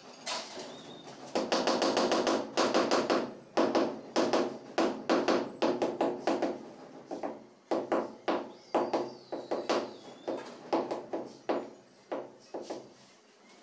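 A mallet tapping a ceramic floor tile down into a wet mortar bed to seat and level it. The taps come in quick runs of about three a second, with brief pauses, starting about a second in.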